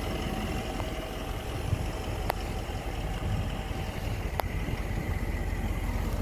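A car engine idling: a steady low rumble with an even pulse, and two faint clicks partway through.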